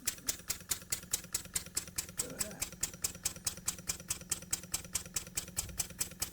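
Jowitt Major poppet-valve steam engine running steadily on compressed air, its exhaust beats ticking in an even rhythm of about six a second over a steady low hum.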